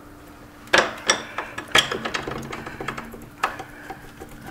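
Sharp metal clinks and knocks as the long steel swingarm pivot bolt is worked into the swingarm and frame of a Triumph Tiger 800XCx: about four distinct clinks with lighter ticks between them, the loudest in the first two seconds.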